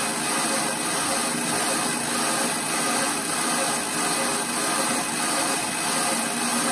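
Vevor 8x14 mini lathe running steadily, its chuck spinning at speed with an even whir. This is a first spin-up to fling out the excess oil sitting in the chuck's holes.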